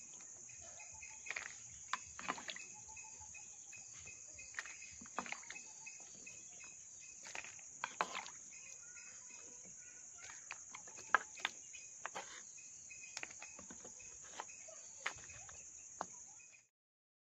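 Steady high chirring of crickets, with irregular light knocks, clicks and watery splashes as a ladle scoops Ceylon olives out of water in a clay pot and drops them into a woven basket. All sound cuts off suddenly near the end.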